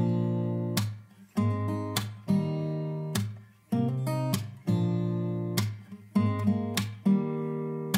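Background music: an acoustic guitar strumming chords at an even pace, each chord ringing out and fading before the next.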